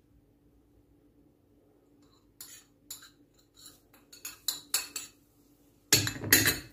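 A spoon scraping chopped herbs off a plate into a food-processor bowl, clinking against the plate and the bowl rim about ten times, then a louder clatter about six seconds in.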